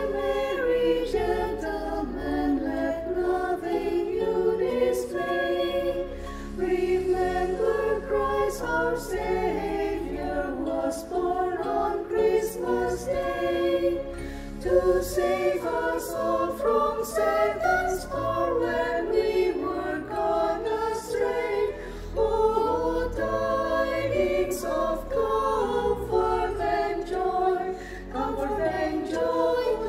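A combined church choir singing a Christmas carol medley in harmony.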